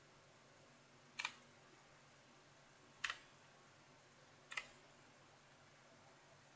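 Three separate key presses on an Aula F2088 mechanical keyboard with blue switches, each a short, sharp click, spaced about one and a half to two seconds apart.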